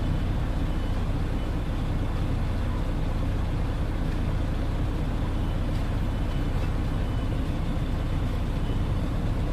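Concrete mixer truck's diesel engine running at a steady speed: a constant low rumble with no change in pitch or level.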